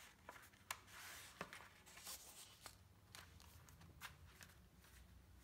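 Faint rustling of paper inserts being slid and shuffled into a traveler's notebook, with a few light taps and clicks of paper and cover.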